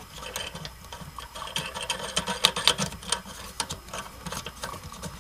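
Toilet seat hinge screw nuts being hand-tightened under a toilet bowl: irregular small clicks and scrapes as fingers turn the nut on the screw.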